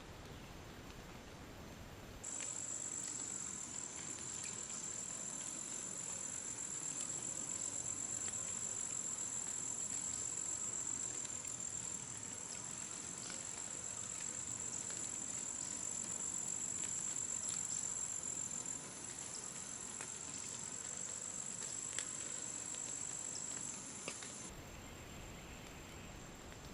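Insects trilling in a steady, high-pitched drone that starts abruptly about two seconds in and stops abruptly near the end, with a few faint clicks.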